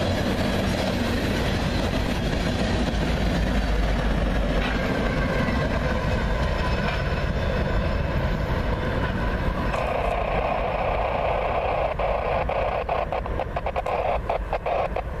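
Freight train of hopper cars rolling past, with its rear-helper diesel locomotives pushing and passing, a steady low rumble. About ten seconds in the sound gets brighter, and a rapid run of sharp clicks follows near the end.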